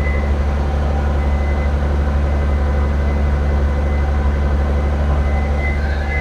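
Race car's V6 engine idling steadily through a newly fitted exhaust, warming up after a fresh start so the exhaust gasket can heat and seal.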